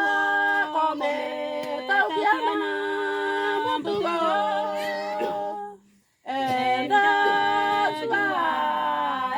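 Women's church group singing a praise song a cappella, several voices holding long notes together in harmony. The singing breaks off for a moment about six seconds in, then comes back in.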